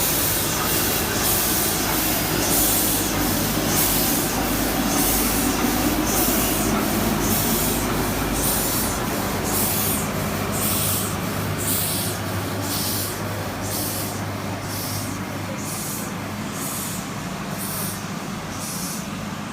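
Nilgiri Mountain Railway steam locomotive being readied, steam hissing in short, even puffs about one and a half a second over a steady low hum, slowly getting quieter.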